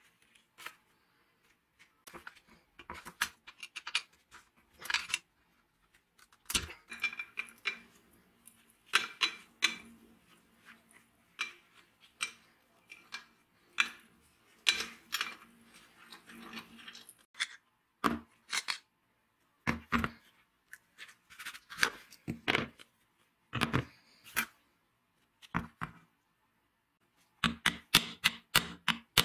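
Irregular metal clicks, taps and scrapes of hand tools on the parts of a disassembled old Siemens angle grinder: a pointed tool scraping a part and a screwdriver working the screws of the bearing plate in the metal housing. The sounds come in short clusters with brief pauses.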